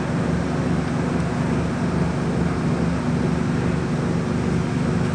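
MTR Kwun Tong Line C-train running through a station, heard inside the carriage: a steady running noise with a low hum underneath.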